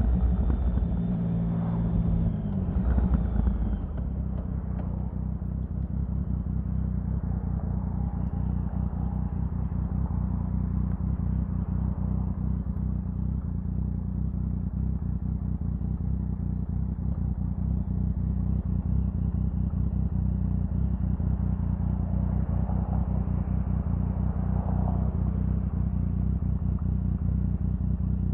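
Triumph Sprint 1050's inline three-cylinder engine running, its engine note shifting in the first few seconds and then holding steady.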